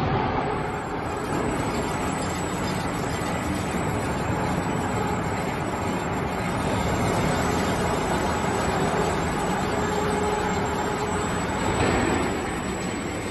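Thin-blade slitter scorer machine starting up suddenly and then running with a steady mechanical hum and rumble from its drive and turning shafts. There is a brief louder swell near the end.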